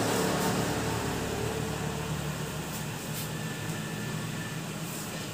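Steady room hum and hiss, slowly fading, with a couple of faint knocks.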